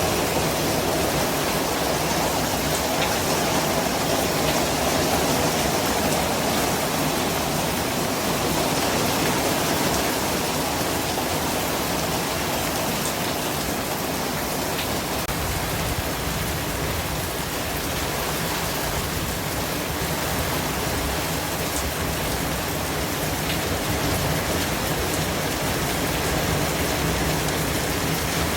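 Steady white-noise hiss with a rain-like texture, even and unbroken, with a few faint ticks in it.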